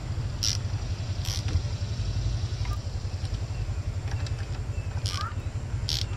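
A steady low rumble with an even pulse, like an engine running, fills the background. A few short metallic clicks come from a wrench snugging the bolts that hold the ignition coil pack of a GM 3.8L V6, two early and two near the end.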